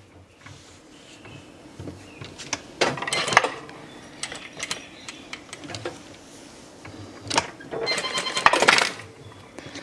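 Rustling and sharp clicks of fabric and small sewing tools being handled, in two short spells about three seconds in and again near the end, the later one with a brief metallic ring.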